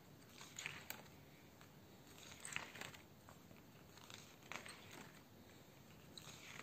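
Faint page turns in a spiral-bound comic book printed on thick 300 g paper, with pages held on a metal spiral binding. There are about four separate soft paper swishes, each under a second, as a hand flips and smooths the stiff pages.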